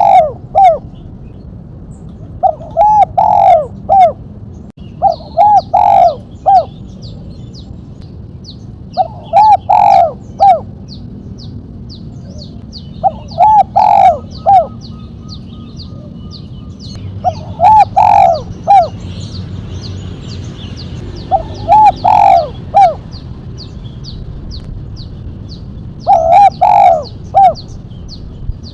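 Spotted dove cooing: a sharp phrase of three to five quick coos, repeated about every three to four seconds. Small birds chirp faintly in the background.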